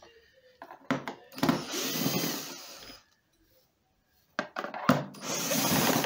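Cordless drill-driver with a long screwdriver bit running twice, each time for about a second and a half, backing out a long screw from the vacuum cleaner's plastic housing. A few sharp clicks come just before each run.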